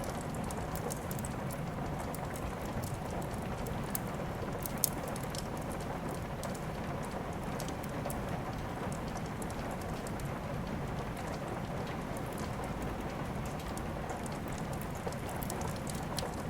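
Steady rain with a fire crackling: scattered sharp pops over an even wash of rainfall, the loudest pop about five seconds in.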